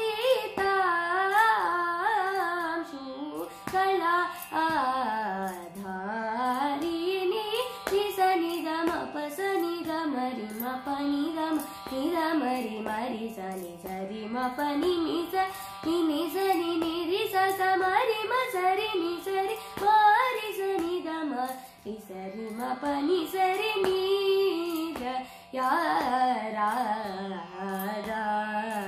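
A young female voice singing a Carnatic varnam in raga Andolika, the melody sweeping up and down with quick oscillating ornaments and brief breaths between phrases. A steady low tone holds underneath throughout.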